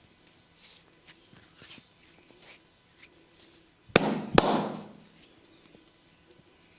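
Head massage: faint scratching and rubbing on hair and skin, then two sharp, loud impacts about half a second apart, about four seconds in.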